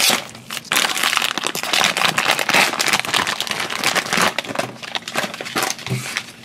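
Foil blind bag crinkling and crackling as hands squeeze it and tear it open to pull out the cardboard-boxed figure.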